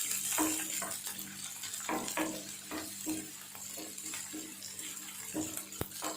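Sliced onion, curry leaves and green chilli sizzling in hot oil in a pan, with a spatula stirring and scraping against the pan in short, irregular strokes.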